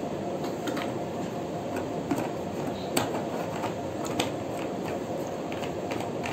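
Someone drinking water during a pause: scattered small clicks and taps of the water vessel being handled, the sharpest about three and four seconds in, over a steady room hum.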